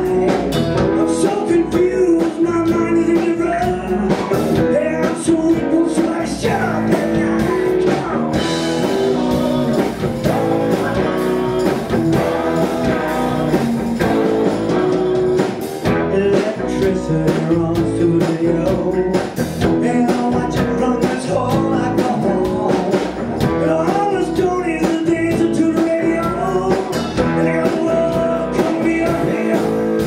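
Live rock band playing: electric guitars, bass guitar and drum kit, with singing over the top.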